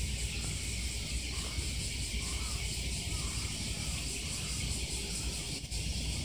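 Steady outdoor ambience: a high, insect-like hiss over a low rumble.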